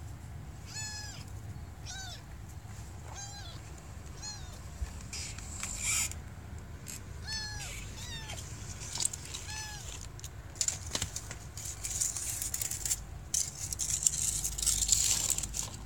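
Calico kitten mewing: about six short, high mews in the first nine seconds, each slightly falling in pitch. In the second half a rustling, scuffing noise takes over, with some sharp clicks.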